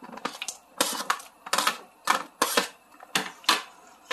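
A metal spoon clattering and scraping against a plastic tray and the rim of a stainless steel pot as diced Korean zucchini is pushed into the stock, about eight sharp clicks and clatters at irregular intervals.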